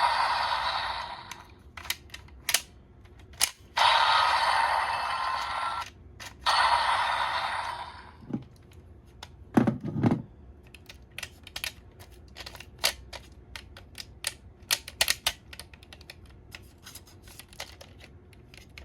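Plastic toy belt buckle being handled: three stretches of plastic rustling in the first eight seconds, then a run of small plastic clicks and snaps as its parts are moved.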